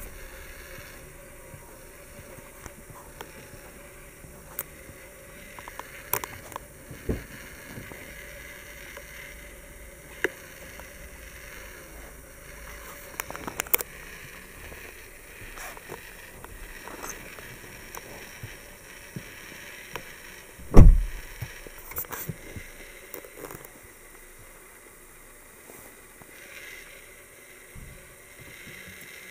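Scattered clicks and knocks as a car's door is opened and someone climbs into the driver's seat, then a single heavy thud about twenty seconds in, the loudest sound: the driver's door of a Volkswagen Passat being shut.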